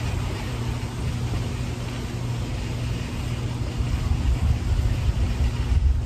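Steady low outdoor rumble with a faint steady hum, the low rumbling growing stronger in the last couple of seconds.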